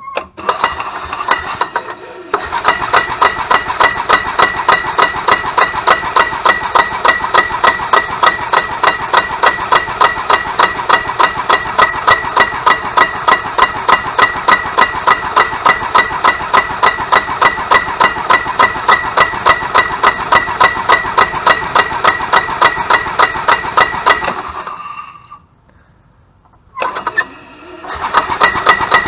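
Club Car DS gas engine cranked over by its starter-generator for a spark check: a steady electric whine with sharp ignition snaps about four or five times a second. It stops about twenty-four seconds in and starts cranking again a few seconds later.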